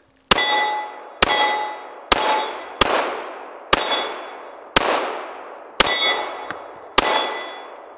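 Eight shots from a Glock 21 .45 ACP pistol, fired at a steady pace of about one a second, each echoing away over about a second. Several hits set steel targets ringing with a metallic ding.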